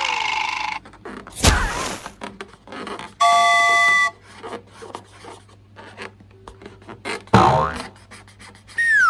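A string of cartoon-style sound effects: a thump, a short bell-like ding, scattered clicks, a second thump, and a falling whistle near the end.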